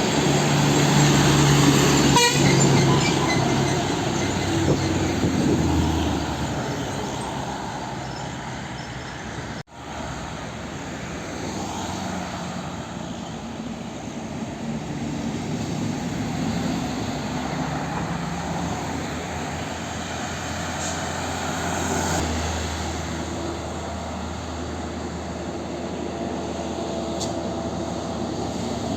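Road traffic with heavy diesel trucks passing, their engines loudest in the first few seconds. The sound cuts off abruptly for a moment about ten seconds in, and steady traffic noise follows.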